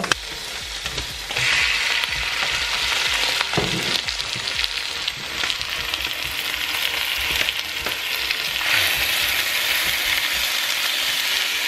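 Raw chicken strips sizzling in hot oil in a pan with fried onion, garlic and ginger; the sizzle gets louder about a second in and again near the end. A spoon knocks and scrapes in the pan as the chicken is stirred.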